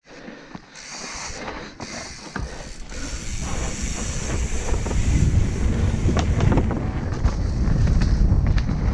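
Mechanical clicking and creaking, giving way to a low rumble that grows steadily louder.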